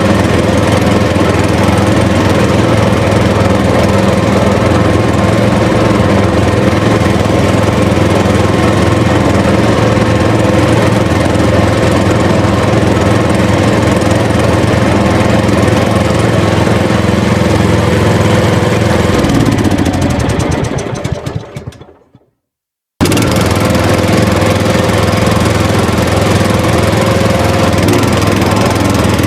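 A small motor running steadily. About twenty seconds in it winds down in pitch and fades out. After about a second of silence it comes back abruptly at full level.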